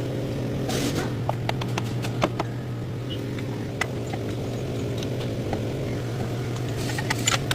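Ford Taurus running, with a steady low hum over a rumble. Scattered light ticks and a cluster of clicks come near the end.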